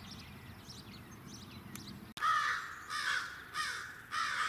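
Faint bird chirping, then about two seconds in a flock of crows starts cawing loudly in a quick series of raucous bursts: a crow mob harassing a great horned owl.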